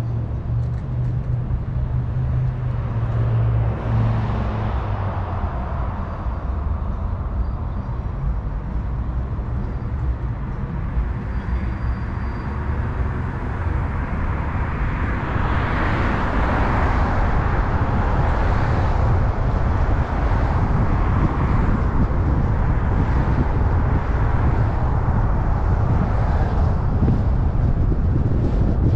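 A car driving on a city street: steady engine rumble with road and tyre noise, which grows louder about halfway through.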